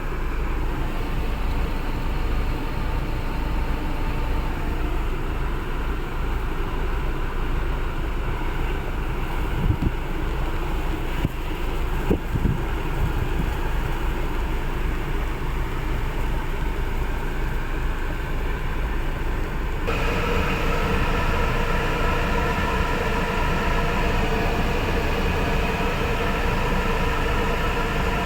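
Steady mechanical running noise, like a motor or fan running; about two-thirds of the way through it shifts to a steadier hum with clear tones, with a couple of brief knocks before that.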